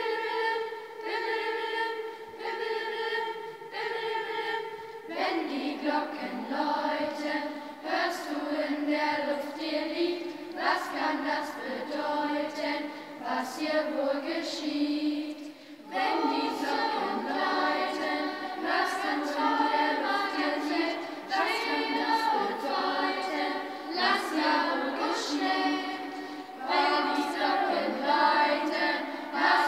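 A children's choir singing together, holding long notes at first and moving into a changing melody about five seconds in.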